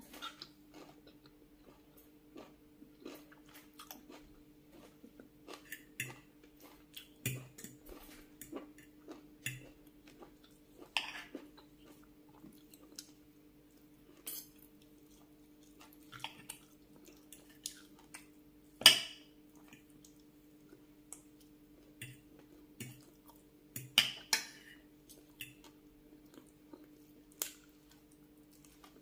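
Metal fork and spoon clinking and scraping against a glass plate in scattered sharp clicks, with chewing of a mouthful of rice and greens between them. The loudest clink comes about two-thirds of the way through. A faint steady hum runs underneath.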